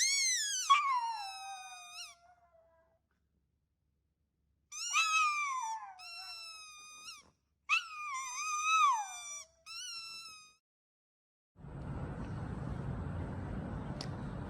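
Cat meowing: four long, drawn-out meows separated by short silences, the first sliding down in pitch. Near the end a steady low rumbling noise takes over.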